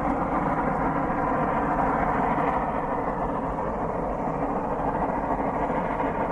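A South Australian Railways T class and a 400 class Garratt narrow-gauge steam locomotive working hard together, climbing a 1 in 60 gradient with a heavy ore train. Their exhaust and running noise blend into a steady, dense sound with no pauses.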